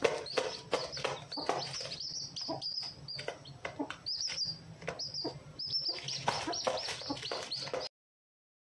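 Newly hatched chicks peeping rapidly and continuously with an Aseel hen clucking among them. The sound cuts off abruptly near the end.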